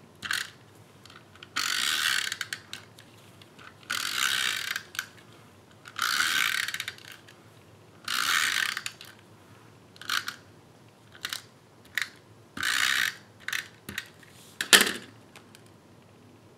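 Stampin' Up SNAIL tape-runner adhesive dispenser rolled across paper in about five strokes, each a second-long ratcheting rasp as the adhesive tape winds off, with a few shorter clicks between. A sharp tap near the end is the loudest sound.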